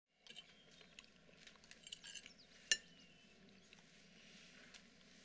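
Faint, scattered clinks and light scrapes of cutlery against dishes, with one sharper clink about two and a half seconds in.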